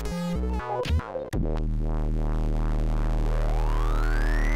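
Commodore 64 chip music played by its 8580 SID sound chip: a quick run of short choppy notes, then from about a second and a half in a held low buzzing chord, over which a single tone glides steadily upward through the last second and a half.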